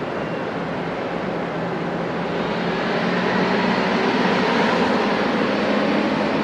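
Cessna 208B Grand Caravan's PT6A turboprop engine and propeller running, with a steady low hum under a broad rushing noise that grows louder about three seconds in.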